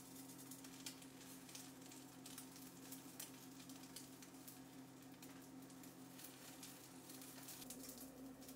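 Faint sizzling and small crackles of oil in a frying pan as omelette-wrapped rice rolls fry, over a steady low hum.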